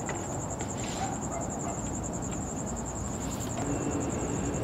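Crickets chirping in a fast, steady, high-pitched pulsing trill over faint low background noise.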